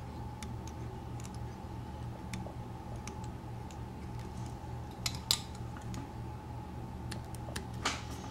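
Fly-tying thread being wrapped onto a hook in a vise with a bobbin: scattered light ticks and clicks, with two louder sharp sounds about five and about eight seconds in, over a steady low hum.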